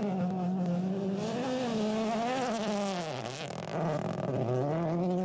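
Rally car engine running hard, its pitch climbing and falling through the revs. It dips deeply twice, about three seconds in and again around four and a half seconds, over a steady hiss.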